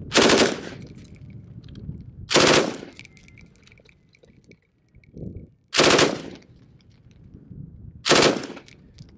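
Chinese Type 56 RPD belt-fed light machine gun in 7.62x39 firing four short bursts of automatic fire, each about half a second long and roughly two and a half seconds apart. The shots come fast enough to blur together: a really high rate of fire.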